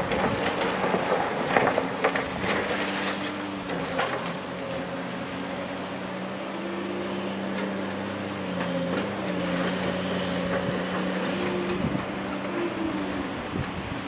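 Diesel engine of a tracked excavator running steadily, its pitch shifting a little as it works under load. Over the first few seconds this is mixed with knocks and clatter of rock and gravel being moved.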